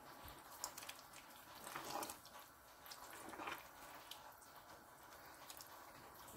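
Faint wet squelching of a spoon stirring thick cassava leaf and palm oil stew in a pot, with a few louder squishes and scrapes about two seconds in and again about three and a half seconds in.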